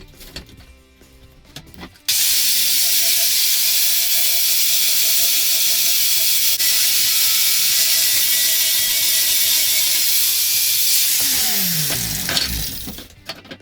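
Power grinder cleaning up a freshly forged carbon-steel blade: a steady, loud hiss of abrasive on steel starts abruptly about two seconds in. Near the end the grinder is switched off and its motor spins down with a falling whine.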